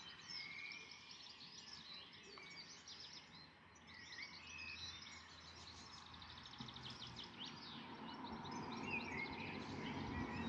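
Several songbirds singing and chirping, with rapid trills and short whistles. A low, steady noise grows louder over the last few seconds.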